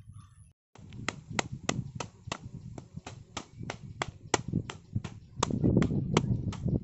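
A wooden plank hammering on a bamboo tree guard, a quick even series of sharp knocks, about three or four a second, that grow heavier near the end.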